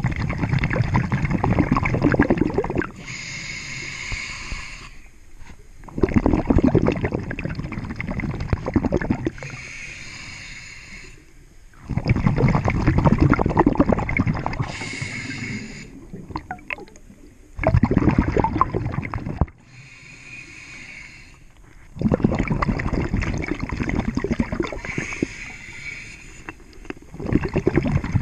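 Scuba diver breathing through a regulator underwater. A long bubbling exhalation comes about every five to six seconds, with a quieter hissing inhalation between them.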